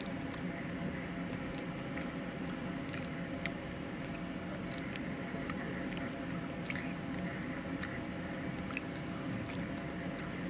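Close-up eating sounds of a person biting and chewing baked chicken off the bone, with scattered small mouth clicks, over a steady low hum.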